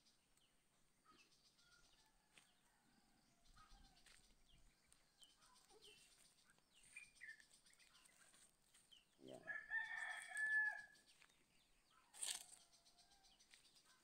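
A rooster crowing once, for about a second and a half, some nine seconds in, over faint small-bird chirps; a short sharp click follows a couple of seconds later.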